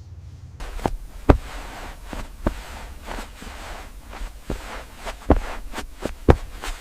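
Irregular knocks and thumps, about a dozen of them, with a rustling hiss that starts about half a second in, over a low steady hum.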